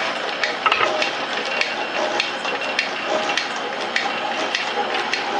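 Belt-driven Rhodes metal shaper running, a steady mechanical clatter with a sharp click repeating about twice a second as the ram strokes back and forth.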